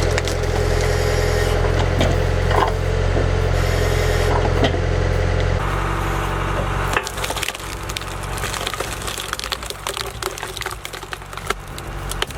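Industrial wood splitter working a large log. The machine runs with a steady low drone and a few knocks. About seven seconds in the drone drops and the wood cracks and splinters in a dense run of sharp crackles as the blade splits it.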